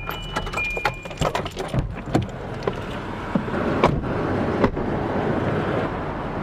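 Clicks and jangling, like keys and a car being handled, with two short high beeps in the first second. After about two seconds it settles into a steady outdoor hiss broken by a couple of knocks.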